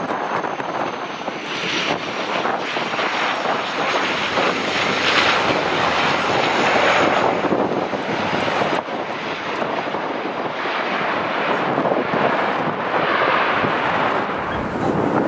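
Flybe Dash 8 Q400's two turboprop engines and six-bladed propellers as the airliner lands and rolls out along the runway, a steady dense roar that swells louder twice.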